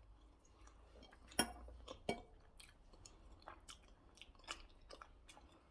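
A person chewing food close to the microphone, with soft wet mouth clicks and smacks throughout and two louder clicks about a second and a half and two seconds in.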